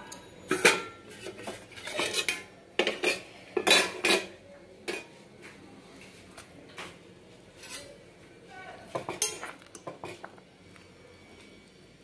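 Stainless steel pots, plate and cooking utensils clinking and knocking together as they are handled. A string of sharp metallic clinks with short ringing, busiest in the first five seconds and again around nine to ten seconds in.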